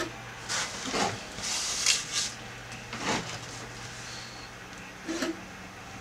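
Calligraphy pen scratching across thick paper in a few short strokes, loudest about two seconds in, with the hand rubbing over the sheet, under a steady low hum.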